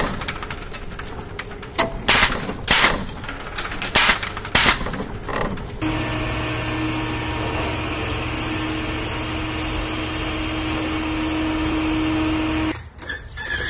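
Sharp metal clanks of a floor jack and its steel handle, five hard strikes in the first five seconds. They are followed by a steady mechanical hum lasting about seven seconds that cuts off suddenly near the end.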